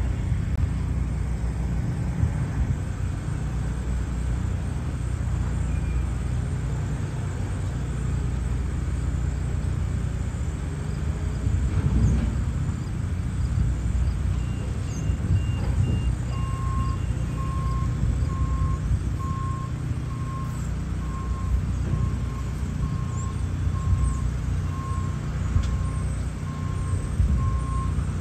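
Telehandler's diesel engine running steadily under load while it lifts a small shipping container, swelling briefly near the middle. From a little past halfway, a backup alarm beeps about once a second.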